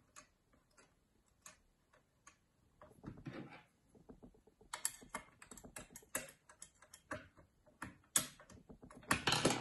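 Small irregular metallic clicks and scrapes of lever-lock picks working the levers inside a Mottura 52771 lever mortice lock. The clicks come thicker from about halfway through.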